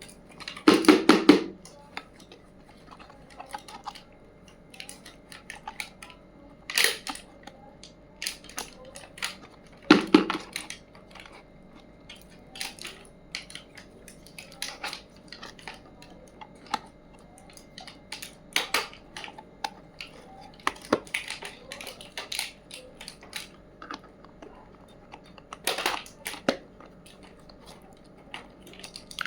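Miniature toy kitchen pieces being handled and set down: scattered light clicks and taps, with a louder clatter about a second in and again about ten seconds in.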